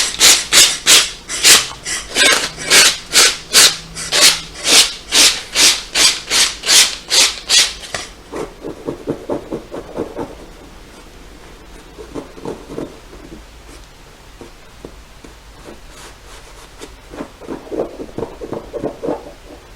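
Sandpaper rubbed by hand over peeling bonded leather, stripping off the flaking surface: quick back-and-forth strokes about two to three a second, loud for the first eight seconds, then softer rubbing that dies away, with a few more soft strokes near the end.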